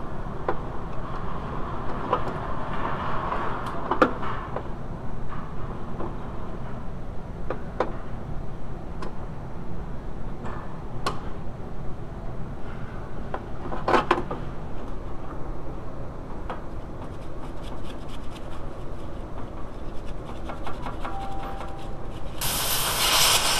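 Wrench working bolts from underneath a car in short, cramped swings: rasping metal-on-metal with scattered sharp clicks. Near the end a parts washer's solvent stream comes on with a loud, steady hiss.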